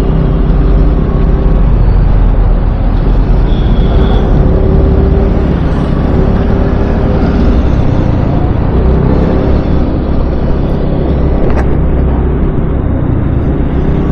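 Steady rumble of wind on a helmet-mounted microphone, with a scooter's engine running underneath while riding at road speed.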